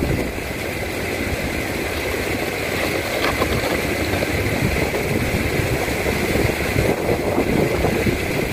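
Steady rushing noise of water falling from a nearby spout, loud enough to make the spot noisy.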